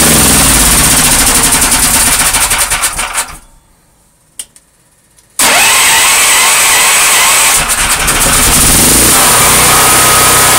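Hyundai HCP9000 generator's engine running, then switched off and winding down to a stop about three seconds in. After a short quiet gap with a single click, it is electric-started and catches at once, running steadily again.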